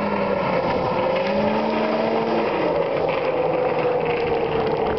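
Snowmobile engine running steadily as the machine drives away, its pitch falling slowly.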